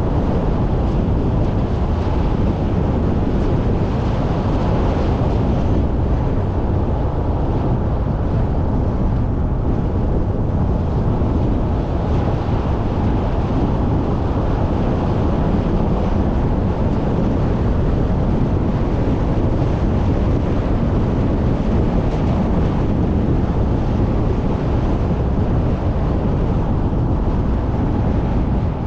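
Steady road and wind noise of a car driving at speed, an even rush with no pitch to it that holds unchanged throughout.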